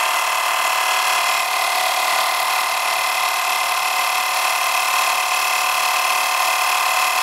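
A 12-volt portable air compressor running steadily with a constant whine, pumping air into a motorcycle tire to seat its bead on the rim.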